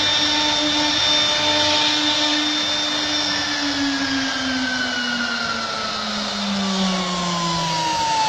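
CNC router spindle whining over a steady hiss, its pitch falling steadily from about three seconds in as the spindle winds down.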